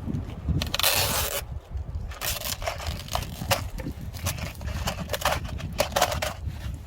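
Wind buffeting the microphone with a steady low rumble, a rush of rustling about a second in, then a run of sharp crackles and clicks like fabric or plastic being handled.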